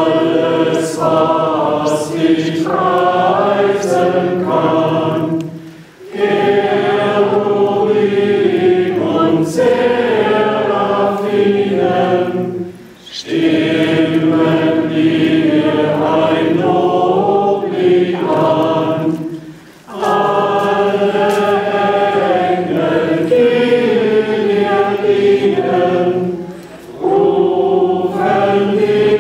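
A crowd of people singing together without accompaniment. The singing comes in long phrases of about seven seconds, with short breaks between them.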